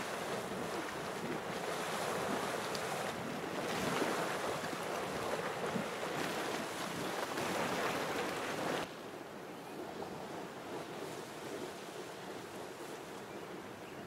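Spouter Geyser erupting: water splashing and surging out of its boiling pool in a steady rushing noise, with wind on the microphone. About nine seconds in, the sound drops abruptly to a quieter surging.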